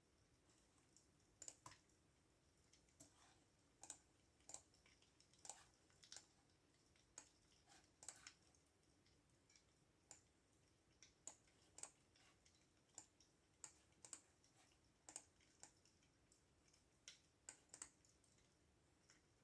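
Computer keyboard typing, faint and unhurried: single key clicks at an uneven pace, some in quick pairs, with short pauses between them.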